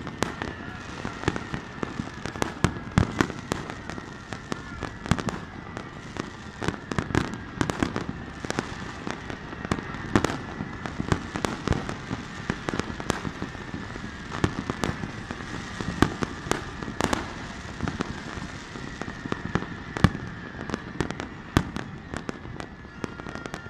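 Fireworks display: a continuous run of bangs and crackling as shells burst, with a faint steady high tone underneath.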